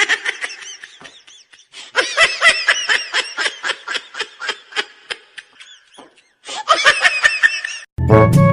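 High-pitched laughter in rapid, evenly repeated bursts, coming in three spells with short breaks between them. Music starts just before the end.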